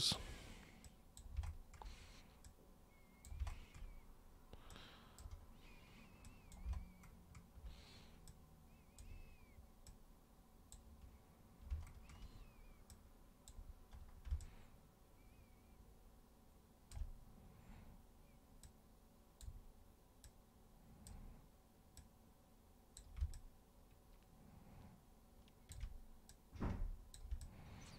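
Quiet, irregular clicking of a computer mouse and keyboard, with soft low thumps every few seconds.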